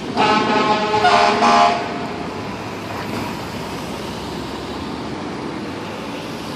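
Fire engine horn sounded in three quick blasts for traffic to give way, followed by a steady rumble of engines and traffic.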